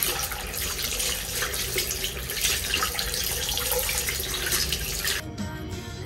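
Water running from a tap and splashing over hands being rinsed in a sink, a steady hiss that cuts off suddenly near the end.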